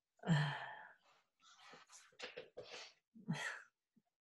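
Wordless vocal noises over a video call: a loud sigh-like exclamation just after the start, then a run of short breathy sounds, each cut off into dead silence.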